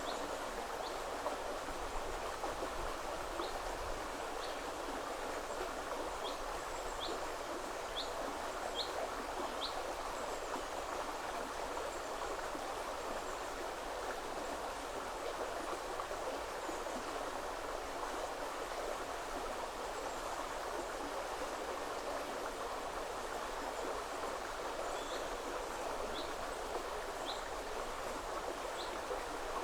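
River water rushing steadily over stones. A small bird gives short high chirps about once a second, in one run during the first third and another near the end.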